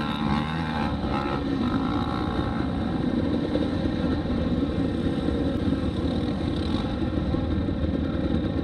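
Dirt bike engine running at low revs. Its pitch rises and falls for the first couple of seconds, then it settles into a steady rumble.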